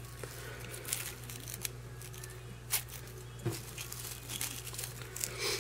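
Shredded crinkle paper rustling and crackling softly as it is gathered and twisted in the hands, in scattered brief crackles.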